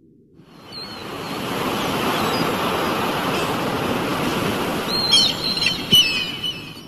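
Seaside sound effect: a steady rush of waves and surf that fades in over the first second or so, with a few bird chirps and a cluster of them near the end, then cuts off suddenly.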